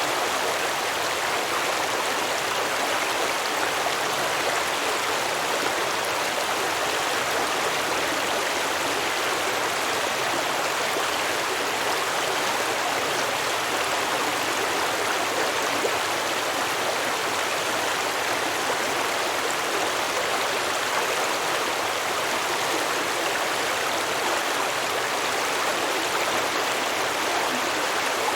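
A small stream flowing and babbling over rocks, a steady rush of water.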